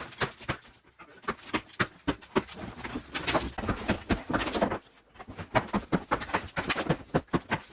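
Irregular run of sharp knocks and clatters, denser about three to four seconds in, with a brief lull near five seconds.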